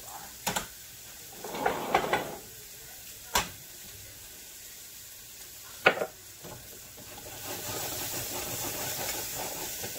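Spice jars being handled at a kitchen spice shelf: a few sharp clicks and knocks as jars are picked up and set down, with a short rattle about two seconds in. A hiss swells near the end as paprika is shaken over the dish.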